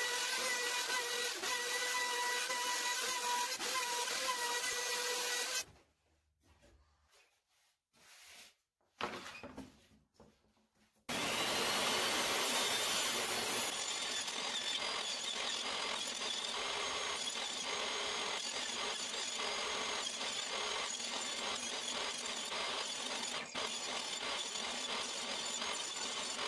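Handheld router running steadily with a whine, cutting angled dados across a cedar board, and stopping about six seconds in. After a few seconds of near quiet, a DeWalt jobsite table saw runs steadily, ripping the dadoed cedar board into thin strips.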